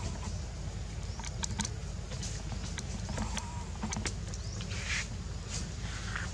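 Outdoor background noise: a steady low rumble with scattered sharp clicks and a few brief high chirps.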